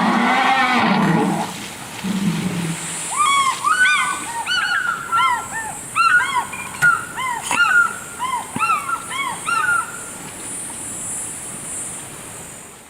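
Wild birds calling: a run of short, arching, hoarse cries, several a second, from about three seconds in until near the end. It is preceded by a low, drawn-out pitched sound in the first two seconds.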